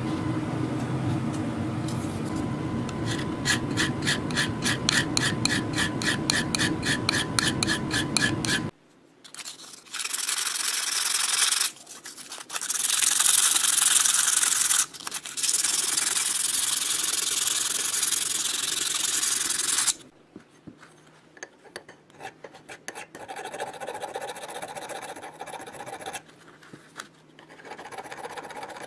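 Hand filing of a steel shaft: loud, harsh rasping stretches through the middle, then lighter, irregular strokes of a small round file near the end. Before that, for the first nine seconds, a steady mechanical hum with a rapid, even clicking of several ticks a second runs and then cuts off.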